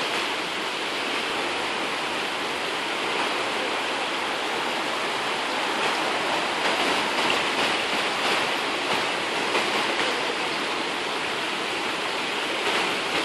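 Floodwater of a small concrete-channelled city river rushing steadily, swollen after heavy rain and spilling over its banks.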